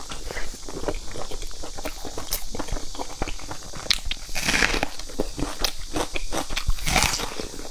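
Close-miked mouth sounds of eating: wet chewing of a steamed dumpling with many small clicks, then two loud crunching bites into a raw red onion, a little past halfway and again near the end.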